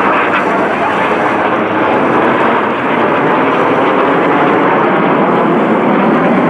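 Rolls-Royce Viper turbojets of a formation of Aermacchi MB-339 PAN jet trainers in flight, a loud, steady rushing jet noise.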